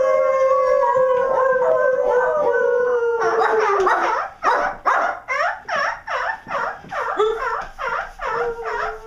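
Drawn-out howling from more than one voice, slowly falling in pitch, breaks about three to four seconds in into short quick yelps, about three a second. A long howl starts again near the end.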